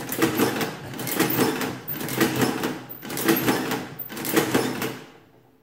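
Victor manual adding machine being hand-cranked about five times, roughly one pull a second, each stroke a loud mechanical clatter of gears, levers and print mechanism with sharp clicks. The repeated cranks are running a multiplication by repeated addition.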